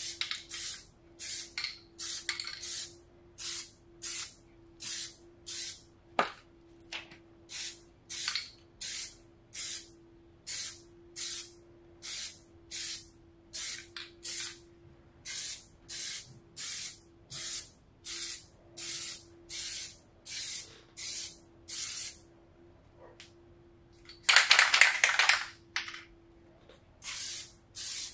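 Aerosol can of Plasti Dip rubber coating spraying in short hissing bursts, about two a second. Near the end comes one longer, louder spray lasting about a second and a half.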